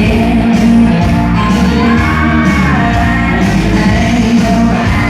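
Loud music with a singing voice over a steady beat.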